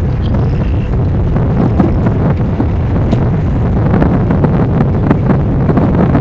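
Wind buffeting the microphone in a steady low rumbling roar, over the rumble of an approaching Union Pacific freight train's diesel locomotives.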